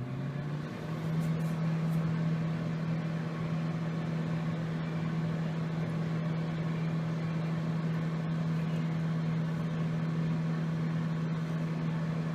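Microwave oven running: its hum rises in pitch during the first second as it starts up, then holds steady with a faint hiss.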